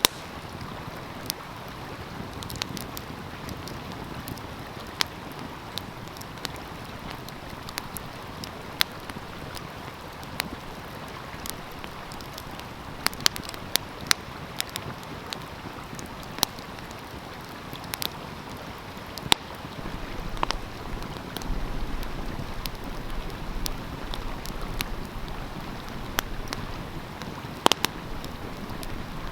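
Wood fire crackling, with irregular sharp pops and snaps, over the steady rush of a flowing stream. About two-thirds of the way through, the background grows louder and deeper.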